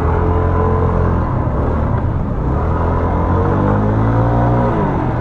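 A motor vehicle's engine revving in the street: a steady note that climbs from about three seconds in and falls away near the end, over a dense background of street noise.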